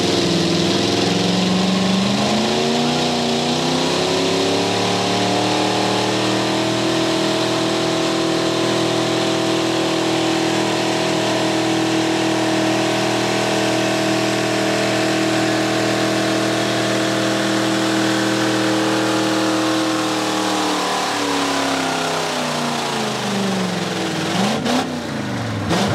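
Monster truck engine under full load pulling a weight-transfer sled. The revs climb over the first few seconds, hold steady for a long stretch, then fall away, with a short rev up and down near the end.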